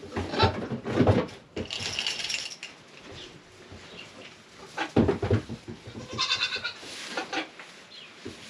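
Goat bleating: two short high-pitched bleats, about two seconds in and again about six seconds in, with low thumps in between.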